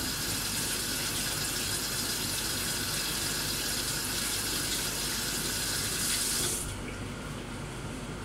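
Kitchen tap running into a sink while snow peas are rinsed under it by hand, shut off about six and a half seconds in.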